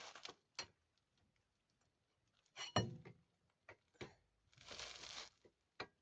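Metal tools clinking and clanking: a handful of separate knocks, one near three seconds in with a brief metallic ring, and a short scraping rustle around five seconds.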